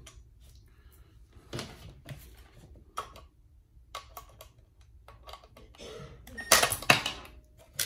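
Scattered clicks and clatter of screws and a cordless impact driver being handled on the metal pump housing, then the impact driver running briefly near the end as it drives a screw.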